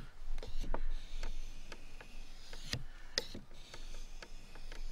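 Steel knife blade drawn across a wet 800-grit Japanese water stone in repeated sharpening strokes, heard as a series of short, irregular scrapes and clicks.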